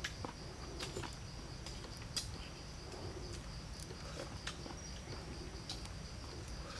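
Insects chirring in a steady high-pitched drone, with scattered sharp clicks over a low background rumble.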